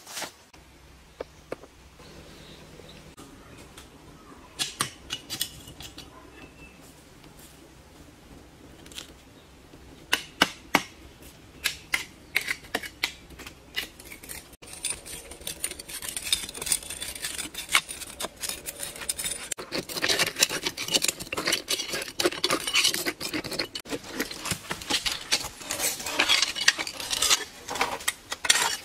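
A metal blade scraping and striking against rock: scattered sharp taps at first, then quick repeated strokes with a faint metallic ring that grow denser through the second half.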